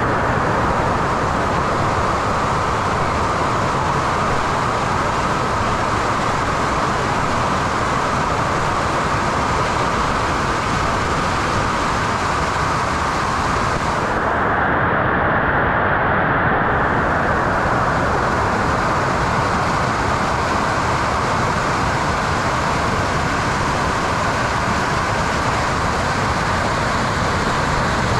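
Dam overflow water rushing and churning down stone steps, a steady, unbroken rush of white water close to the microphone.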